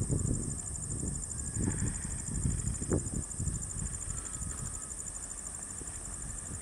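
Insects, crickets or cicadas, chirring in a steady high-pitched trill, over a low, uneven rumble.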